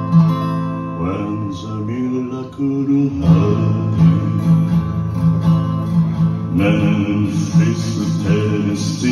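Acoustic guitar strummed steadily, with a man singing into a microphone over it.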